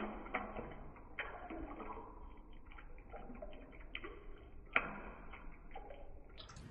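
Cubes of set jelly dropping from a glass bowl into a large pot of milk sharbat, plopping and splashing into the liquid several times. The splashes come at the start, about a second in, and around four and five seconds, with faint sloshing between them.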